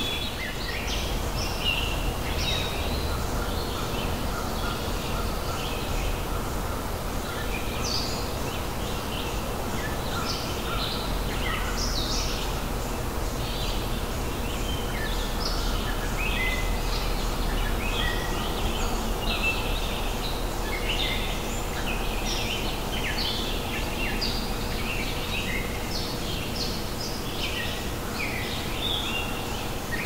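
A chorus of many birds chirping and calling busily over a steady low background noise.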